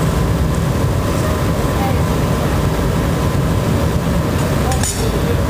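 Steady roar of a glassblowing studio's gas-fired glory hole and furnaces, with a brief sharp click near the end.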